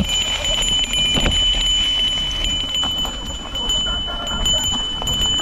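A bell on a mountain bike ringing without let-up as the bike rides a rough trail: one steady high ring, with a few short knocks from the bike over the ground.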